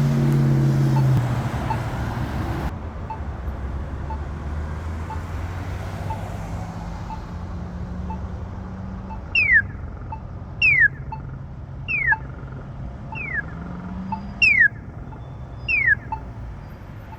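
Polara EN4 pedestrian push button's locator tone ticking about once a second over passing road traffic. From about halfway through, a series of six loud chirps, each falling in pitch, comes at about one a second.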